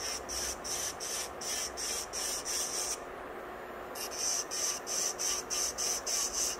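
Electric nail drill with a fine bit grinding away the gel around a rhinestone set on a fingernail, in short strokes about three a second over a faint steady motor hum. The strokes stop for about a second midway, then resume.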